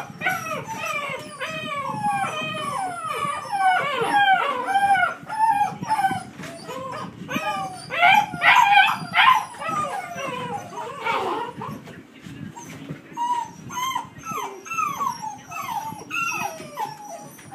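A litter of puppies whining and crying together, loud, with many short cries rising and falling in pitch and overlapping one another.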